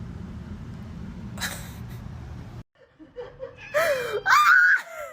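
A steady low rumble that cuts off suddenly, then a loud, high voice rising and falling for about a second near the end.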